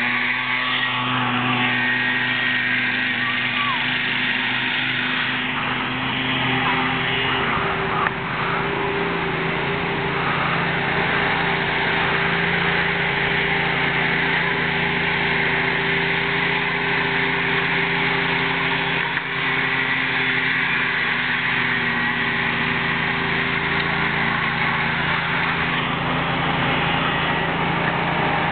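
Small lawn tractor engines running at a steady speed, more than one engine heard at once.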